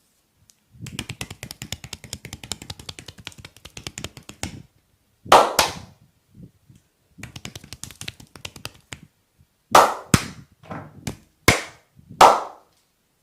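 Percussive massage on a person's back: a fast run of light tapping for about four seconds, then two loud smacks, another run of quick taps, and a string of loud, sharp smacks near the end.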